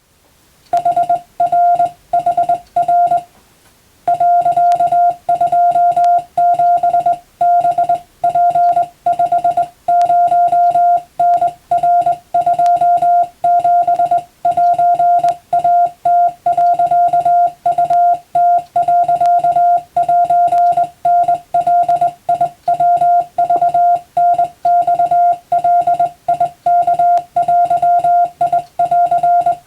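Morse code sent as a steady beeping tone of about 700 Hz, keyed on and off in dots and dashes: Japanese-text (wabun) telegram practice. The keying starts about a second in, pauses briefly, then runs on without a break.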